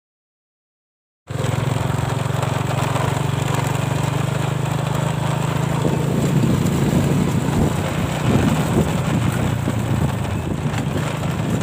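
Motorcycle engine running while riding, starting abruptly about a second in. A steady low engine note for the first half, turning rougher and noisier from about halfway through.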